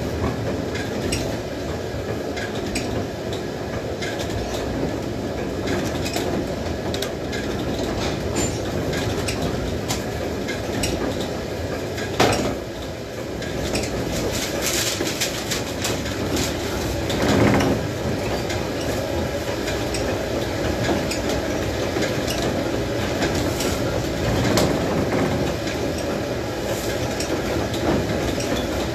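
Wind-driven corn windmill grinding grain: the millstones and gearing run with a steady rumble and a constant fine clatter. A sharp knock comes about twelve seconds in, and a louder thud about five seconds later.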